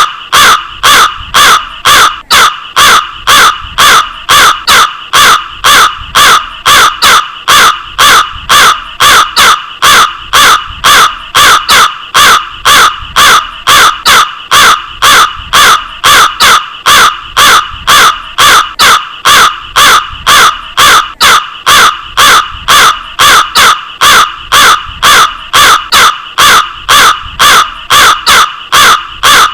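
Crow cawing over and over: short, loud, harsh caws in an unbroken, evenly paced series of about two a second.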